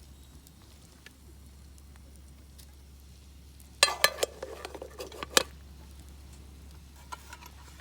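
Metal cookware clattering: a quick run of sharp knocks and rattles, like a lid or utensil against a pot, for about a second and a half near the middle.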